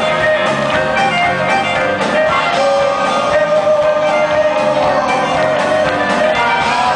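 Live rock band playing, with electric guitar prominent in a steady, dense band sound, heard through the PA in a concert hall.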